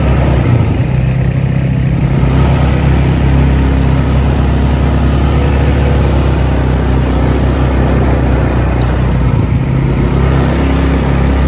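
ATV (quad bike) engine running loud and steady while riding, its pitch shifting slightly about a second in and again near the end.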